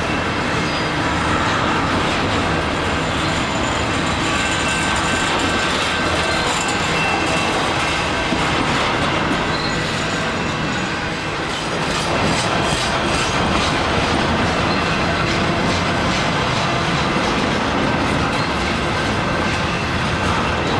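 Freight train cars rolling past on steel rails: a steady rumble of wheels with clickety-clack over the rail joints and faint thin wheel squeal at times.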